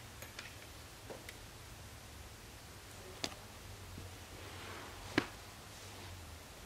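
Quiet room tone with a low hum, broken by a handful of scattered sharp clicks from a MacBook Air being handled; the loudest click comes about five seconds in.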